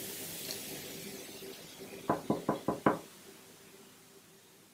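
Knuckles knocking on a wooden door: five quick, evenly spaced raps about two seconds in.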